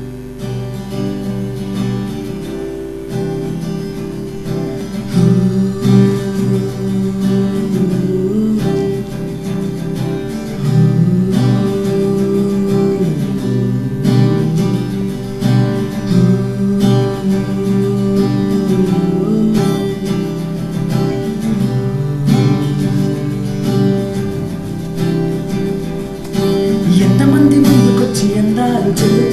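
Cutaway acoustic guitar playing a melody. A man's singing voice comes in near the end, where the playing grows louder.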